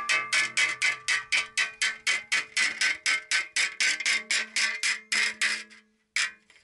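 Steel hammer beating a hand-held aluminium sheet plate to shape it, about four sharp strikes a second, each with a metallic ring. The strikes break off near the end, with one more before they stop.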